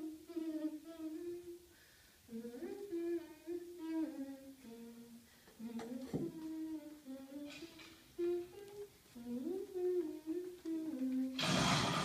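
A woman humming a slow, wordless melody in short phrases that rise and fall, with brief pauses between them. Just before the end, a short breathy rush of noise.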